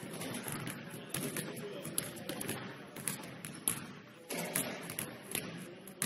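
Basketball bouncing on a hardwood gym floor, irregular thuds roughly once a second, over a low murmur of distant voices.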